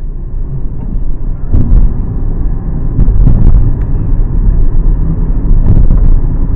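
Loud, steady low rumble of a car on the move: road and engine noise, swelling unevenly, with a few faint clicks.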